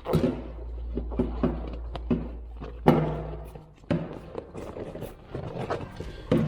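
Hands working a rubber inner tube into a bicycle tire: irregular rubbing, squeaks and knocks, with a sharper knock about three seconds in and another about a second later.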